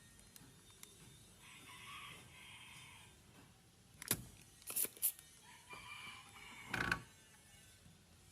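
A rooster crowing twice, each crow lasting about a second and a half. Between and after the crows come a few sharp clicks or knocks, the loudest of them a heavier knock near the end.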